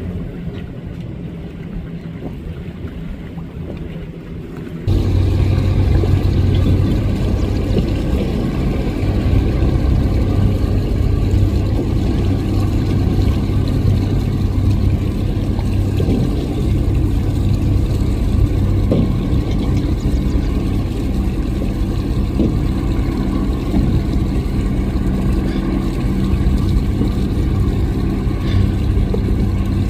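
High-powered speedboat engines running at speed. About five seconds in the sound becomes suddenly much louder, then holds steady.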